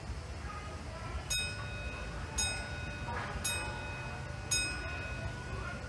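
Disneyland Railroad steam locomotive's bell ringing, five strokes about one a second, over the low rumble of the train.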